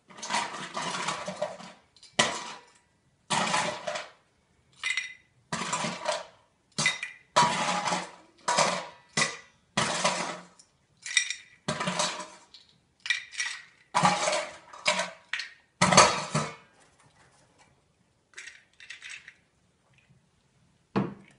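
Ice cubes clattering and rattling against a glass and metal parts as the caipirinha machine adds the ice, in a string of short, uneven bursts that stop about sixteen seconds in, with a couple of faint rattles and a knock afterwards.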